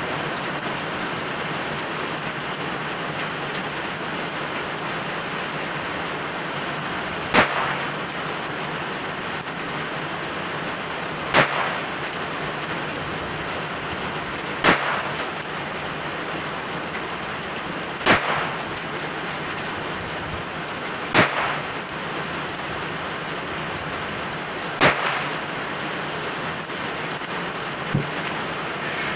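Six sharp shots from a Ruger Wrangler .22 single-action revolver, fired one at a time about three to four seconds apart, over steady rain falling on surfaces. A fainter tap follows near the end.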